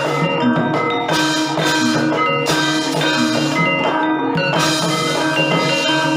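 Gamelan music: bronze metallophones and gongs struck in quick, even runs of notes, with drumming underneath.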